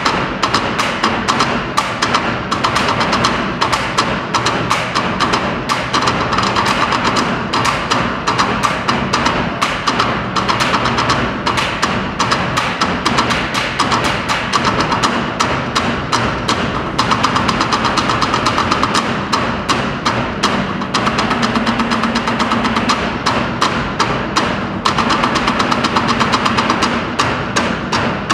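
Background music with a fast, driving percussion beat.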